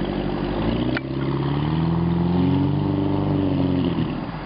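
A classic Albatross speedboat's engine revving up as the boat accelerates away, rising in pitch over a couple of seconds and then fading near the end. A single sharp click about a second in.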